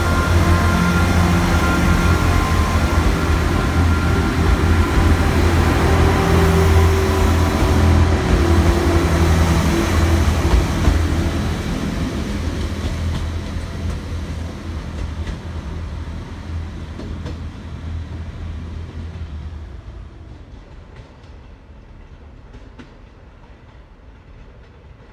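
Class 158 diesel multiple unit pulling away under power, its underfloor diesel engines running loud and steady at first. The sound fades gradually over the second half as the train recedes into the distance.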